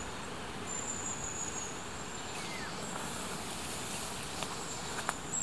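Crickets singing in the grass: a thin, high, steady trill that breaks off and comes back. Under it is a soft rustling hiss of tall vegetation being pushed through on foot, with a couple of sharp clicks near the end.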